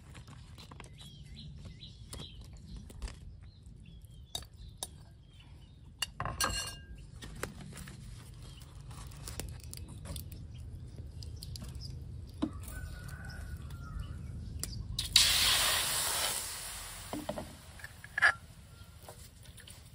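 Scattered small clicks and knocks of cookware being handled, then, about fifteen seconds in, liquid hitting a hot wok and sizzling loudly for about two seconds before dying down.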